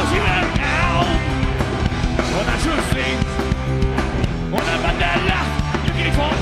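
Rock band playing live: electric guitars, bass and drums, with the singer's voice over the music in the first second and again near the end.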